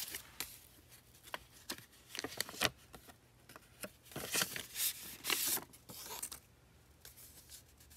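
A paper greeting-card envelope being handled and opened: scattered paper rustles and light taps, with two longer tearing or sliding paper sounds in the middle as the card comes out.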